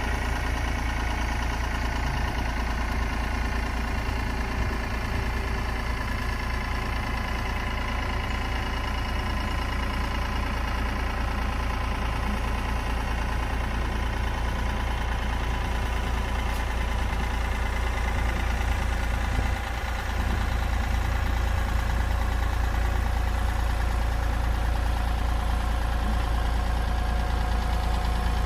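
Classic Ford tractor engine running steadily, with a brief dip about two-thirds of the way through, then a little louder.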